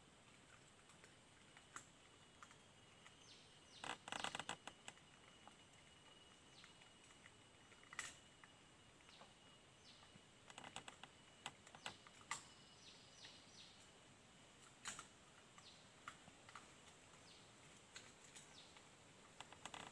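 Faint scattered crackling and rustling of dry leaf litter as wild boars root and forage, in small clusters, loudest about four seconds in and again around eleven seconds. Short falling bird chirps come and go throughout.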